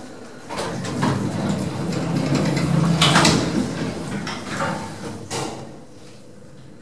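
Lift doors sliding, with a rumble and rattle and a sharp knock about three seconds in.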